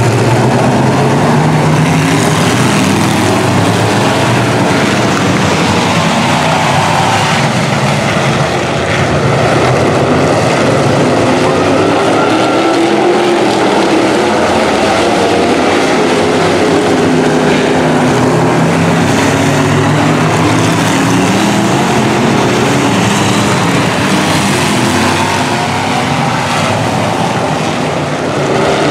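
Several dirt-track race car engines running together as a pack laps the oval, loud and continuous, with overlapping engine notes rising and falling in pitch as the cars pass.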